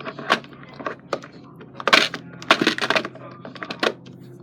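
Slime with little rocks mixed in, squeezed and worked by hand, giving irregular crackling clicks and pops.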